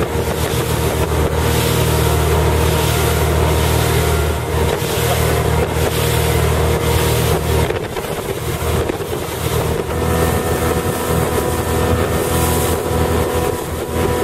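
A motorboat's engine runs steadily with a low drone while wind buffets the microphone. About eight seconds in, the low drone turns uneven.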